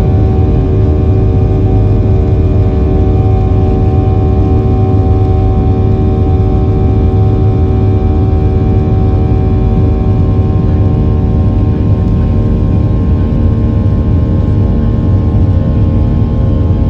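Airliner jet engines running at takeoff power, heard from inside the cabin: a loud, steady low rumble with several steady whining tones above it.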